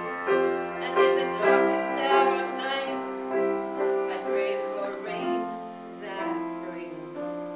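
Piano playing a slow melody with chords, notes struck and left to ring, getting somewhat softer toward the end.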